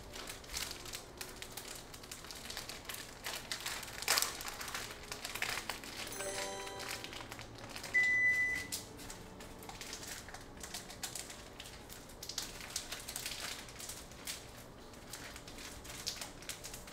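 Plastic seaweed-snack (gim) packet crinkling and crackling as it is twisted and tugged at while someone struggles to tear it open. A brief electronic alert tone sounds about 8 seconds in.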